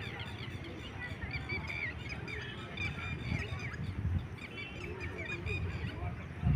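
A flock of waterbirds on a lake calling, many short calls overlapping with one another, over a low rumble.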